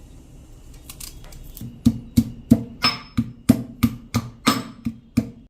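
Pestle pounding pieces of ginger in a mortar to crush out the juice: a few light taps, then from about two seconds in a steady run of sharp strikes, about three a second, each with a short low ring.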